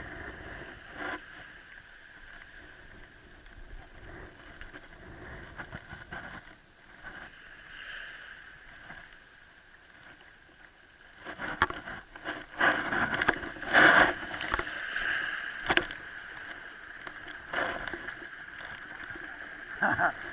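Water sloshing and splashing, low and steady at first, then louder and more irregular with sudden splashes from about halfway through.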